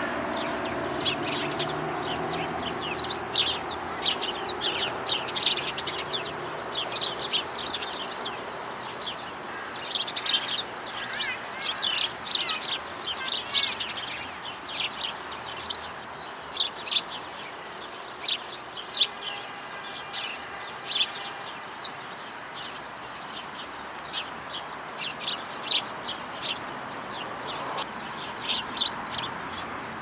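A flock of house sparrows chirping, many short sharp chirps overlapping, busiest in the middle and thinning out later. A steady low hum runs underneath.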